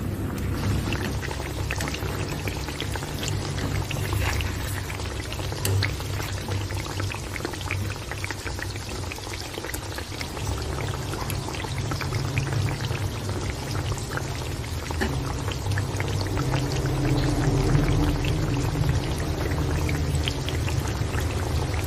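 Braised fish in its sauce simmering in a metal pan, a steady patter of small bubbles popping.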